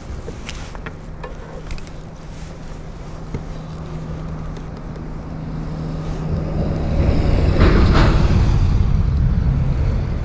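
Wind buffeting the camera microphone, building to a strong rumble in the second half, over a steady low hum. A few sharp handling clicks come in the first few seconds.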